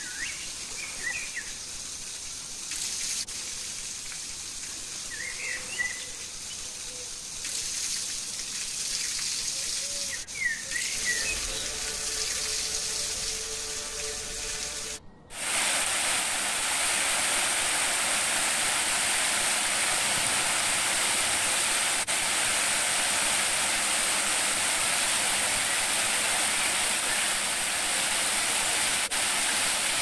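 Forest ambience with a few short bird chirps, then, after a sudden break about halfway, the steady rushing of a stream spilling over a low rocky weir.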